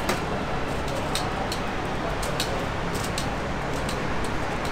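Busy ambience at a street-front kebab counter: a steady low din with frequent, irregular sharp clicks and clinks, like utensils on metal.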